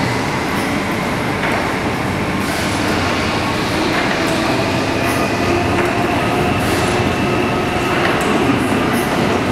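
Historic steam winding engine and its rope drum running, a steady mechanical noise with faint whining tones over it.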